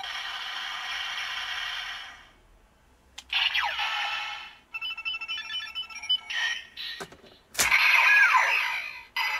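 Electronic sound effects from a DX Ziku-Driver transformer belt toy and its Geiz Ridewatch (Memorial Version). A steady effect ends about two seconds in; after a short quiet gap comes a swoosh, then a quick run of beeps, a couple of sharp clicks, and a loud effect with a falling tone near the end as the watch goes back into the driver.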